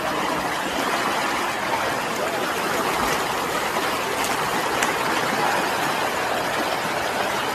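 A river flowing, a steady rush of water with no let-up.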